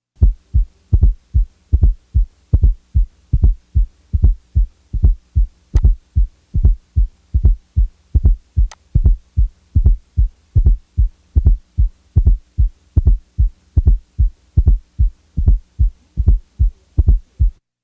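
Simulated heart sounds heard through a stethoscope: paired low lub-dub thumps (first and second heart sounds), a little under a second per beat, with a faint steady hum beneath. Over the run a fourth heart sound (S4, atrial gallop) is taken out and then added back as a soft, low extra sound just before the first sound. This is the late-diastolic sound of the atria contracting into a stiff ventricle.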